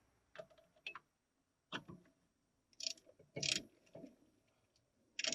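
Faint, irregular metallic clicks and knocks from a ratcheting brake caliper piston compressor tool being handled and fitted against the caliper, a few per second with a short cluster about three seconds in.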